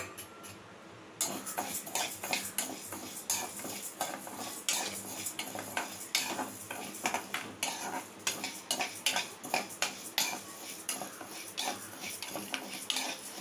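Metal spatula scraping and stirring dry toor dal around a kadai with no oil, the lentils rattling against the pan. The scraping starts about a second in and goes on in quick, uneven strokes.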